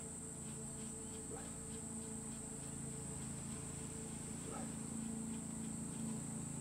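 Steady low hum and a steady high-pitched whine in the background, with a couple of faint light ticks as a titanium axle nut is threaded by hand onto the anti-seize-greased rear axle.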